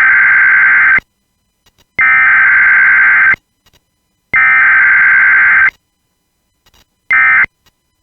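Emergency Alert System SAME header tones: loud, harsh digital data bursts made of two high alternating tones. Three long bursts of about a second and a half each come with a second's pause between them, then a shorter burst near the end.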